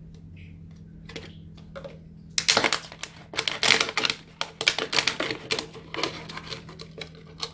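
Scissors cutting through a thin plastic water bottle: a fast, irregular run of sharp snips and crackles of the plastic starting a couple of seconds in.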